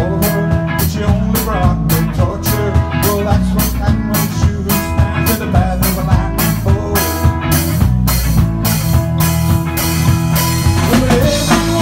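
Live rock band playing: electric bass guitar, electric guitar and drum kit, with a steady beat.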